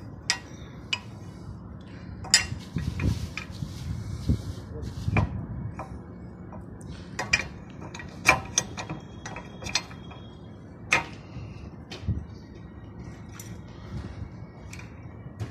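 Irregular sharp metallic clinks and knocks of tools and metal parts being handled, over a low steady hum.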